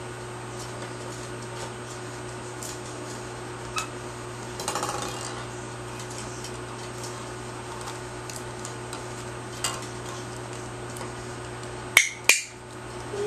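Scattered light taps and clinks of small hard objects over a steady low hum, then near the end two sharp, loud clicks in quick succession, like a training clicker pressed and released.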